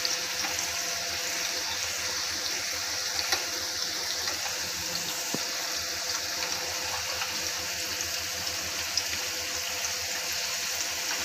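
Potato snack pieces deep-frying in hot ghee in a steel frying pan, a steady sizzle, with a few light clicks of metal tongs as the pieces are turned over.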